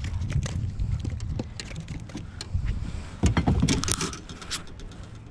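Knocks, taps and rustles of a small walleye being handled and unhooked against a boat's deck and gunwale, with a louder flurry about three seconds in, over a low steady rumble.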